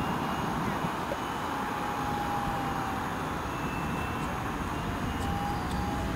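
Brushless electric motor and four-blade propeller of a small radio-controlled foam Spitfire model flying overhead. Its thin whine drifts slightly lower in pitch over a steady rushing noise.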